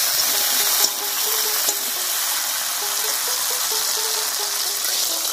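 Green peas sizzling steadily in hot mustard oil in a kadai. A faint background music tune plays over it.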